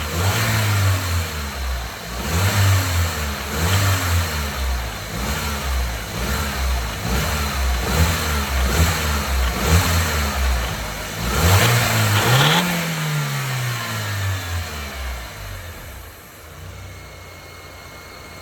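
Audi S3 8L's 1.8-litre turbocharged four-cylinder engine revved in a string of short blips, one higher rev about two-thirds through, then dropping back to a quieter idle near the end. The engine carries a rattle that the owner cannot identify.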